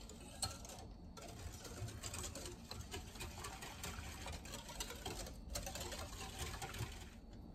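Metal wire whisk stirring a liquid ice cream base in a glass bowl: a fast, faint run of clicking and scraping as the wires knock against the glass, with short breaks about a second in and again near five and a half seconds, then dying away just before the end.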